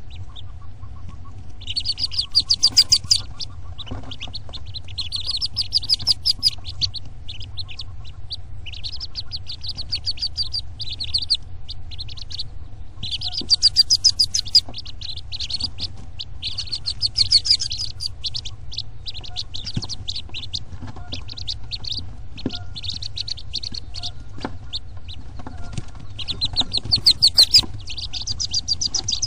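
High-pitched bird chirping in quick bursts about a second long, each a rapid run of short peeps, repeating every few seconds over a steady low rumble.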